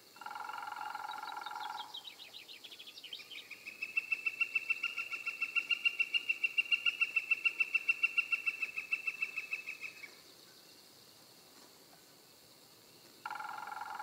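Northern flicker giving its long call: a rapid series of high, even notes, about six a second, lasting some seven seconds, the first few sliding downward. A steady, flat tone of unknown source sounds for about two seconds at the start and comes back near the end.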